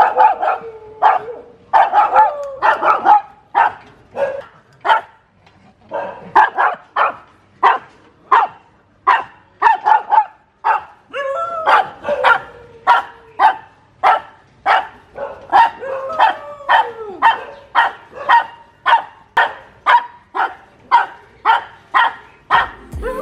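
Dogs barking territorially through a gate: a Shih Tzu barking at stray dogs outside, sharp barks at about two a second with a brief pause about six seconds in. A few longer whining calls are mixed in.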